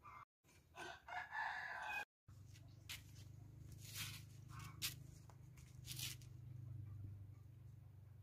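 A rooster crowing once, cut off abruptly about two seconds in. After that there is a low steady hum with a few sharp clicks.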